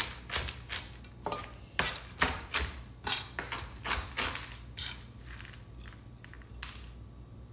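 Chef's knife chopping toasted pistachios on a wooden cutting board: a steady run of sharp knocks, about two to three a second, that thins out and stops about five seconds in, leaving a few light taps.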